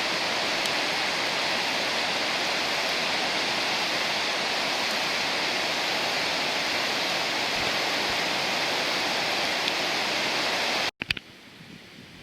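Waterfall: a steady rush of falling water that cuts off suddenly near the end, giving way to a much quieter background with a few faint ticks.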